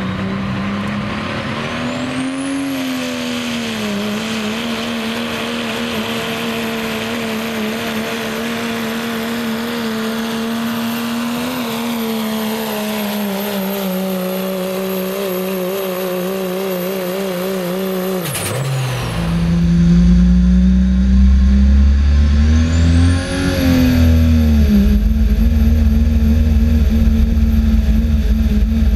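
Cummins diesel in a Dodge Ram pull truck at full throttle hauling a weight sled. The engine holds a steady high pitch, with a high whine that climbs in the first few seconds and then holds. About two-thirds of the way through, the sound switches to inside the cab: louder, with a heavy low rumble, and the engine pitch rises briefly and then holds.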